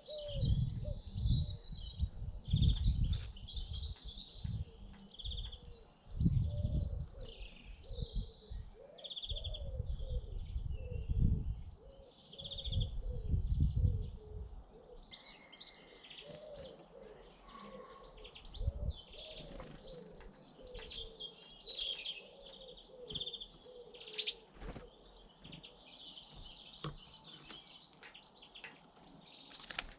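Small garden birds chirping and twittering around a feeder, over a pigeon cooing in a long repeated series of low, curved notes. Bursts of low rumble come and go through the first half, and a sharp click stands out about 24 seconds in.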